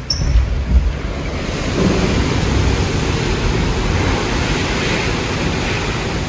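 Hurricane wind rushing and gusting loudly, with heavy low buffeting of the wind on the phone's microphone. It comes in suddenly as a door is opened, with a brief squeak at the start.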